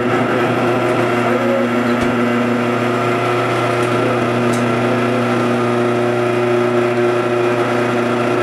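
Electric garage door opener motor running steadily with an even hum while the overhead door closes.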